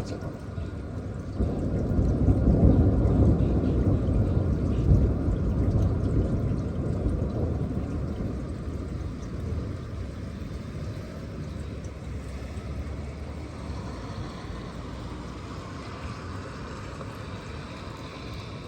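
Long rolling thunder rumble: a low rumble swells about a second and a half in, peaks over the next few seconds, then slowly dies away.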